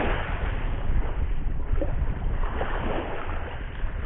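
Wind buffeting the microphone over the wash of surf on the shore, a steady rushing noise.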